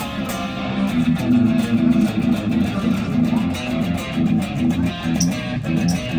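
Stratocaster-style electric guitar played with a pick: a continuous run of quickly picked notes.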